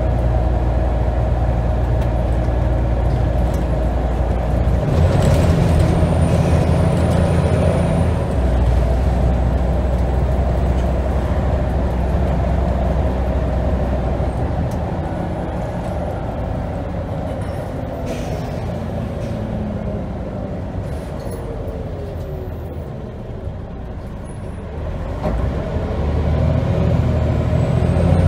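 Scania N94UD double-decker bus's 9-litre diesel engine heard from the upper deck, working hard under load through the ZF Ecomat automatic gearbox. It eases off and gets quieter through the middle, then picks up strongly again near the end as the gearbox kicks down.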